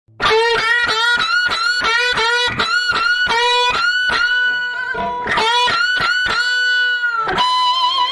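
Guitar playing a short riff: quick plucked notes, about three a second, each sliding up into its pitch, broken by longer held notes in the middle.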